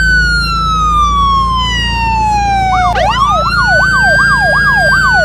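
Electronic emergency-vehicle siren: a long wail falling slowly in pitch, then about three seconds in a fast yelp warbling about three times a second over a second wail tone, with a steady low hum underneath.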